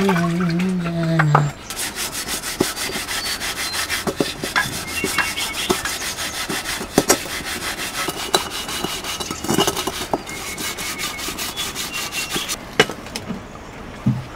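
A cow's low, drawn-out moo ends about a second and a half in. Then an aluminium plate is scrubbed by hand in quick, steady rasping strokes, which stop about two seconds before the end and give way to a few light knocks of metal dishes.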